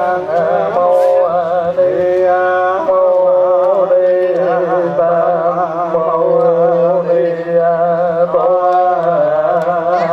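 Vietnamese Buddhist chanting sung to a slow melody, voices holding long, wavering notes, the chant that accompanies bathing the Buddha statue.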